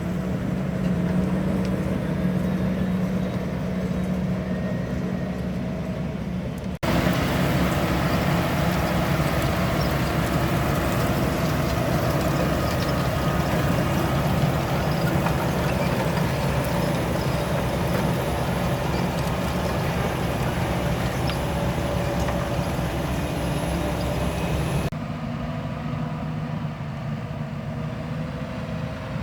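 Grimme potato harvester working: its diesel engine runs steadily under the clatter of its elevators and webs. The sound jumps abruptly to a fuller, noisier run about 7 s in and drops back near the end.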